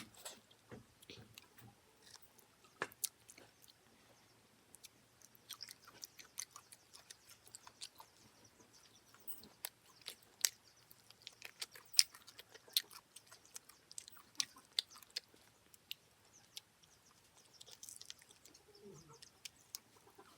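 A person chewing and crunching food close to the microphone: irregular sharp clicks and smacks.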